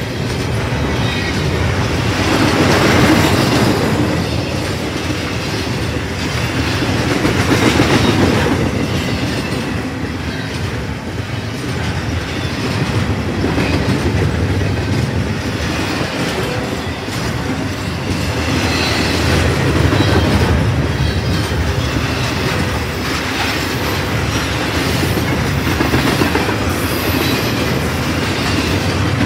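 Double-stack intermodal freight train rolling past at close range: steel wheels on the rail, a steady rumble with clicking over the joints, the loudness swelling and easing every few seconds as the well cars' trucks go by.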